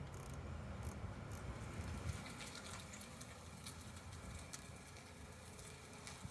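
Scattered light metallic clicks of a socket ratchet and wrench being worked on a nut, undoing a wire terminal on a motorcycle ignition coil, over a low rumble that fades after about two seconds.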